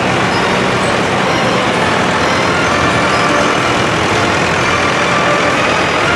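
Engines of farm tractors, John Deere among them, running steadily as they drive past one after another, several low engine notes blending into one loud, even sound.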